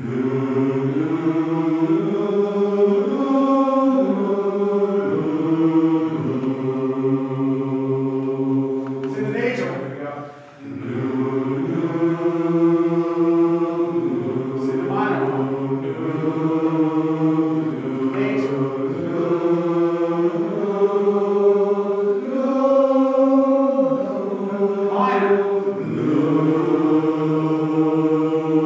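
Men's chorus singing a vocal warm-up exercise of held notes stepping up and down through minor triads. There is a short break for breath about ten seconds in.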